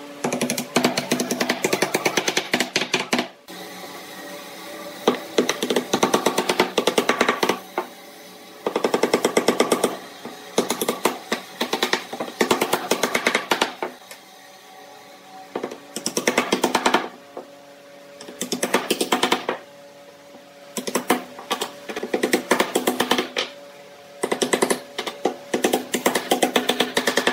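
Wooden mallet tapping wooden slats into their slots in a round wooden tabletop frame: runs of rapid knocks, each a second or two long, broken by short pauses.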